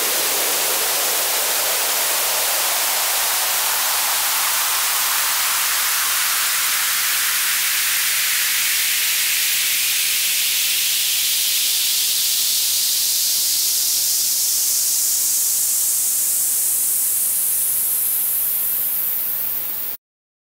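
Synthesized white-noise sweep from FL Studio, run through the Fruity Free Filter with its cutoff automated upward: the low end is steadily stripped away, so the hiss thins and climbs to a high sizzle. It stops abruptly near the end when playback is halted.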